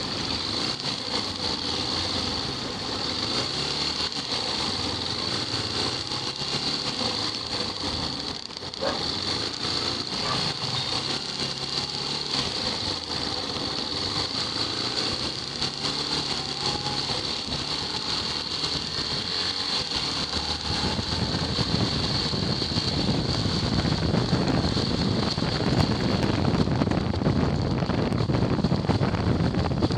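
Motorcycle engine running at low speed in traffic, its pitch rising and falling as the throttle is worked. From about two-thirds of the way in, louder wind rumble on the microphone takes over as the bike picks up speed.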